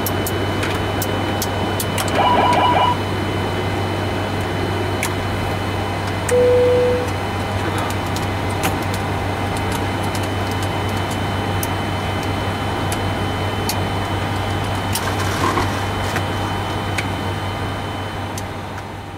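Steady hum of a Boeing 747-400 flight deck, with scattered sharp clicks of overhead-panel switches being flipped. A short pulsing electronic alert tone sounds about two seconds in, and a single steady beep about six seconds in.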